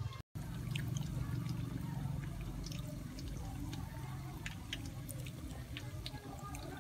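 Hot oil sizzling in a frying pan as battered straw mushrooms deep-fry, with scattered sharp crackles and pops over a low steady hum. The sound cuts out for a moment just after the start.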